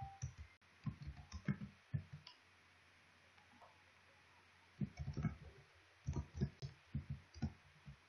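Computer keyboard keys clicking in quick runs of keystrokes as text is typed, with a pause of about two seconds in the middle before the typing resumes.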